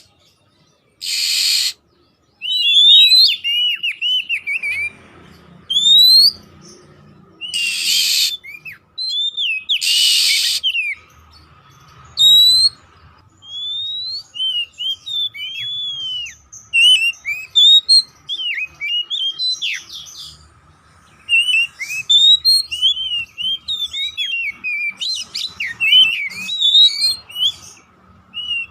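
Oriental magpie-robin (kacer poci) singing: a busy run of short whistled notes sliding up and down. In the first ten seconds they are broken by a few harsh, raspy calls.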